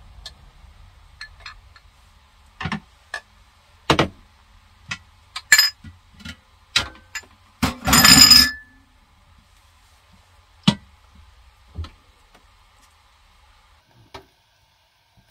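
Cookware and dishes being handled on a kitchen counter: a string of scattered clinks and knocks, with a louder ringing metal clatter about eight seconds in.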